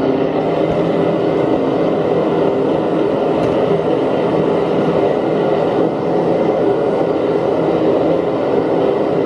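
Homemade blast furnace running, a steady roar of forced-air flame with a constant hum under it, while it holds a crucible of melting brass casings.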